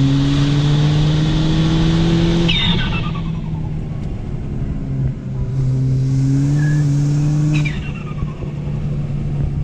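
Turbocharged 1.6-litre four-cylinder engine of a full-bolt-on Ford Fiesta ST pulling under throttle, its note climbing steadily, heard from inside the cabin. It lets off twice, about two and a half seconds in and again near eight seconds, and each time a turbo whistle falls in pitch as the engine drops back.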